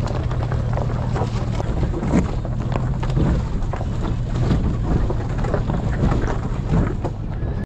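Pickup truck engine running low and steady as the truck crawls along a rocky dirt trail, with irregular crackles and knocks over it and wind buffeting the microphone mounted on the truck's side.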